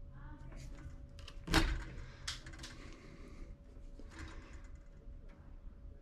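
Wire strippers working on 12-gauge copper conductors: a sharp click about a second and a half in as the insulation is cut and pulled off, then a few lighter clicks and handling noise.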